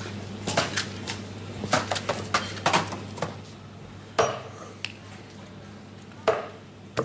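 A large kitchen knife knocking and clinking on a wooden cutting board: a run of sharp, irregular knocks, bunched in the first three seconds, with a few more spaced out after.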